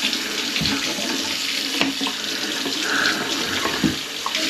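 Kitchen faucet running into the sink, water splashing steadily down a drain that has just been cleared of a grease clog. A few short knocks come through, about half a second in, near two seconds and near four seconds.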